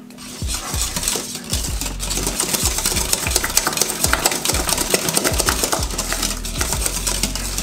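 Wire whisk beating thickening pastry cream in a stainless steel saucepan: a fast, steady scraping and clicking of the wires against the metal, with a low knock at each stroke. The cream is thickening on the heat.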